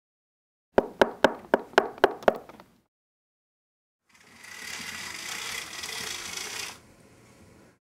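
Rapid knocking on a window pane: about seven sharp knocks in a second and a half, then a pause and a few seconds of even hiss.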